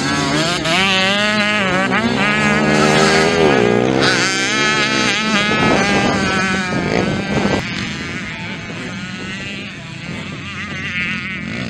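Several motocross bikes revving up and dropping off as riders power through the turns, their engine pitches rising and falling over one another. Loud at first, easing about two-thirds of the way in, then building again near the end.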